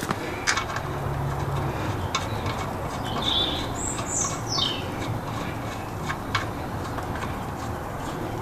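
Outdoor background noise with a few light clicks and a single bird call about halfway through: short high chirps that fall in pitch.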